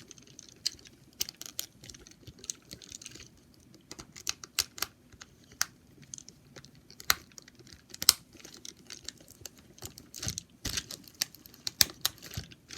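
Irregular clicks and taps of small plastic parts being handled: a toy train tender and its battery compartment, after new batteries have been fitted.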